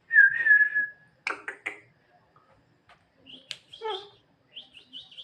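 Javan myna giving a steady whistle for about a second. Three sharp clicks follow, then a run of short, high chirping calls near the end.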